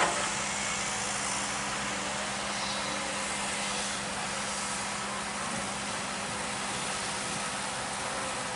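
A motor running steadily: a constant hum under an even hiss, with a brief louder knock right at the start.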